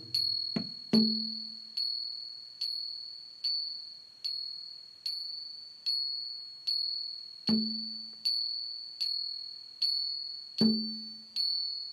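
Background music: a light chime-like instrumental with a sharp tick on each beat, about one every 0.8 s, over a steady high tone, and a few low ringing mallet-like notes.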